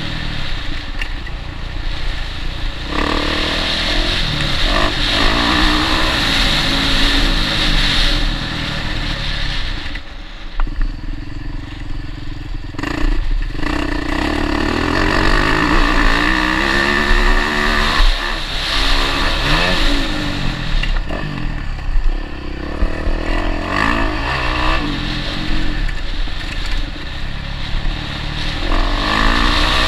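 Motocross bike engine heard up close from the bike itself, revving up and falling back again and again as the rider works the throttle and gears over the track. The engine eases off for a few seconds about ten seconds in, then picks up again.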